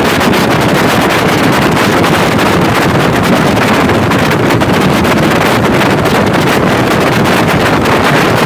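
Loud, steady wind rushing over the microphone of an open-top limousine driving at speed, with the car's engine and tyre noise blended underneath.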